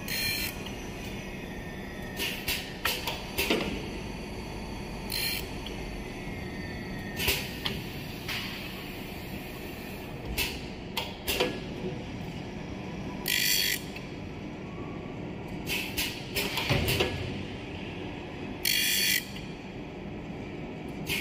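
Automatic double-head saw blade sharpening machine running through its cycle. Its motors give a steady hum, broken by repeated clicks and clunks from the mechanism that moves and steps the saw blade, and twice by a brief hiss lasting about half a second.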